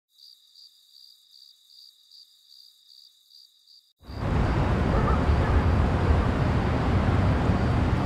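Crickets chirping faintly, about three chirps a second. About halfway, it cuts suddenly to a loud, steady rumble of city traffic.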